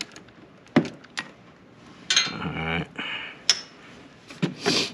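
A handful of sharp clicks and light knocks from hand tools working on an ATV's fuel line, spaced irregularly, with a brief mumbled voice partway through.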